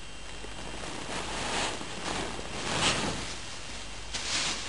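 A Shiba Inu rolling and squirming on a fabric cushion, its body rubbing against the cloth in four short rustles, the loudest about three seconds in.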